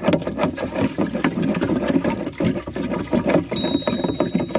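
Water sloshing and splashing as a wooden stick stirs fertilizer powder into a green plastic water tank. A steady high electronic beep comes in near the end.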